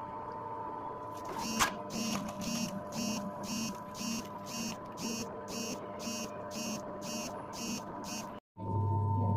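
Electric potter's wheel spinning with a steady hum, joined from about a second and a half in by a regular pulsing sound about twice a second. Near the end the sound cuts out for a moment and a louder low hum takes over.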